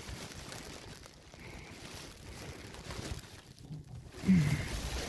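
Faint rustling and handling noise while wires are groped for in a loft void, then a brief low vocal sound, like a grunt, about four seconds in.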